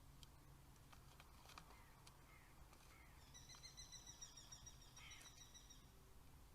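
Faint, high-pitched rapid trill of a bird lasting about two and a half seconds, starting a little past the middle, over near silence with a few faint clicks.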